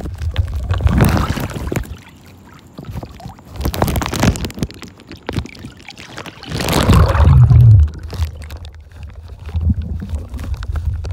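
Pool water heard through a camera dipping in and out of it: a muffled underwater rumble broken by rushing splashes, the loudest about two-thirds of the way through.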